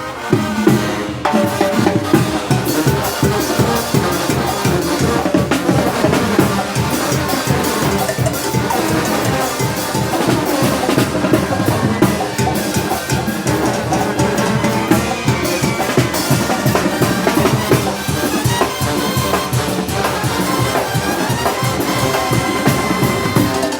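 Oaxacan brass band (banda de viento) playing an up-tempo muertero/calenda rhythm, with bass drum and snare drum driving a steady beat under the brass.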